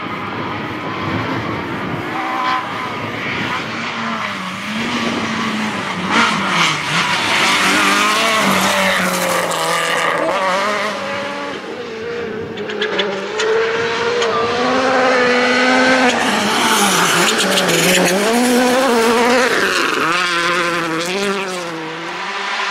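Rally car engines revving hard, with the pitch rising and falling repeatedly through gear changes and braking as the cars drive flat-out past. Tyre and road noise runs underneath.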